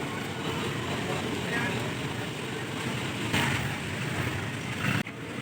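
Busy street background of traffic and people talking, with a brief sharp drop-out about five seconds in.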